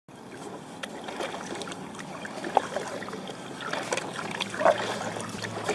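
Water splashing and trickling around a kayak on open water, with a few sharper splashes.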